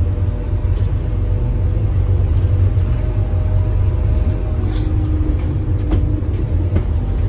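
Steady low rumble of engine and road noise inside a moving road vehicle, with a brief hiss a little under five seconds in.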